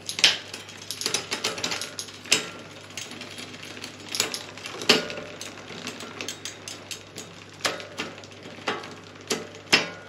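Mountain bike drivetrain turning over on a stand: the chain rattles and clicks over the rear sprockets, with a sharp clack every second or two as the rear derailleur, on its new gear cable, indexes the chain from sprocket to sprocket through the gears.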